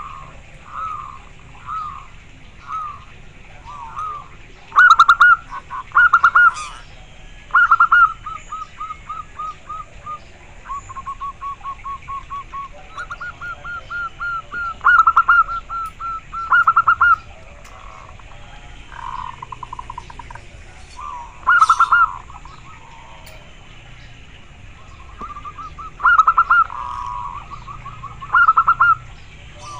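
Zebra dove (perkutut) cooing: repeated phrases of quick, short coo notes, some phrases much louder than the softer, evenly spaced runs of notes between them.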